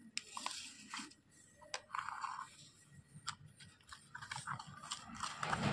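Small plastic spatula stirring and scraping wet slate-pencil powder in a plastic toy pot: gritty scrapes mixed with light clicks of plastic on plastic, with a longer scrape about two seconds in.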